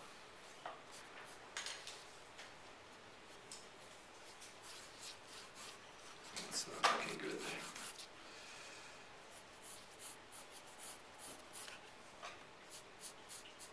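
Pencil lead scratching across drawing paper in short, irregular strokes as curves are sketched, with one louder rustle about halfway through.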